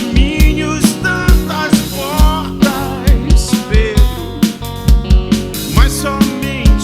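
Live rock band playing: a kick drum on a steady beat of about two a second under bass and guitars, with a melody line that bends and wavers in pitch above.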